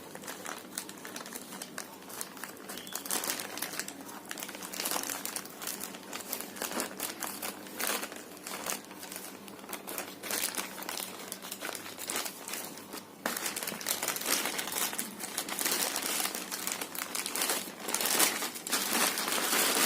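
Delivery packet being handled and opened by hand, giving continuous irregular crinkling and rustling that gets louder a little past halfway through.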